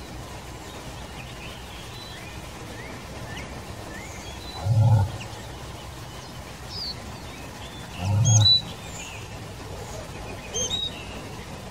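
Bull moose (Eurasian elk) grunting angrily as a warning at people who disturbed it feeding: two loud, deep grunts about halfway through and a few seconds later, then a shorter, softer one near the end.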